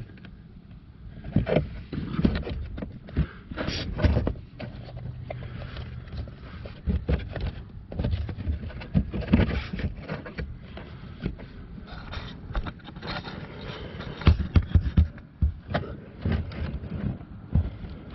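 A car's plastic under-dash cover being tugged and worked loose by hand: irregular scrapes, clicks and knocks of plastic against plastic and metal, with a quick run of sharp knocks about three-quarters of the way through.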